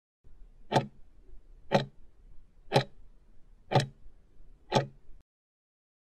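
Countdown-timer clock-tick sound effect: five sharp ticks, one a second, then it cuts off.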